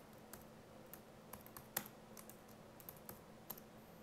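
Faint typing on a computer keyboard: about a dozen irregular keystrokes.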